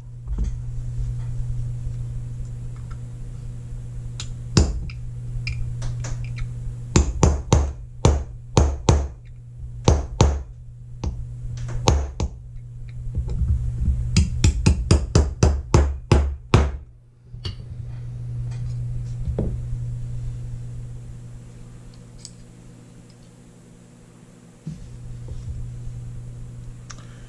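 Small hammer tapping a brass punch to drive out a pin from an antique revolver's trigger assembly. Bunches of sharp metal taps, at times about three a second, stop after about two-thirds of the way through, over a steady low hum.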